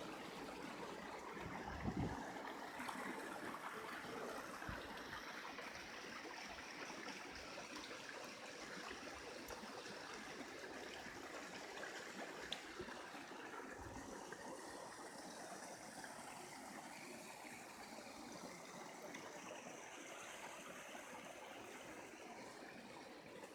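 Hot spring water flowing and trickling in a steady rush, with a brief low thump about two seconds in.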